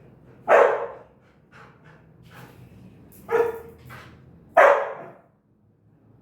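A dog barking three times, loudly: once about half a second in, then twice more a little over a second apart near three and a half and four and a half seconds, with a few softer sounds between.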